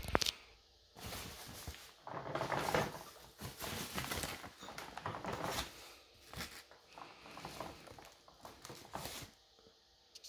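Packaging being handled during an unboxing: a couple of sharp clicks at the start, then irregular rustling and scraping that comes and goes for about eight seconds and stops shortly before the end.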